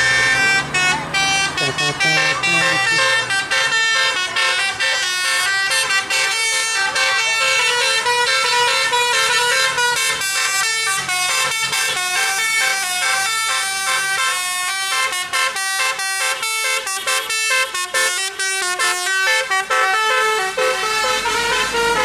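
Tour bus's multi-tone "telolet" air horn playing a continuous melody of quick stepped notes.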